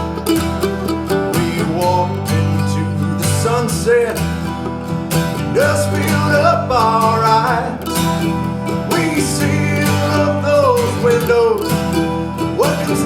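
Acoustic band music, an instrumental passage in a country-folk style: guitars playing, with a melodic lead line that slides between notes.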